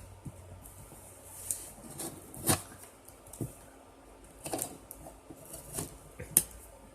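Cardboard box being worked open by hand: scattered scrapes, rustles and sharp clicks of cardboard and tape, a handful of louder ones spread through.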